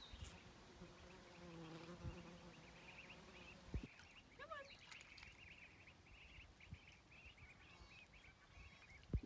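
Very quiet: a faint, dense run of short high chirps starting a couple of seconds in, with a brief low buzz before it and a soft knock or two.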